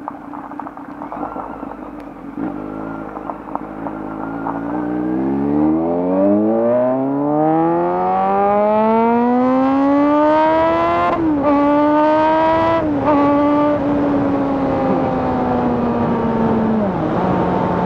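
Kawasaki Z900's inline-four engine through an SC Project full-system exhaust under hard acceleration. The engine note climbs steadily in pitch for about eight seconds, breaks briefly twice, then eases slowly lower and drops near the end.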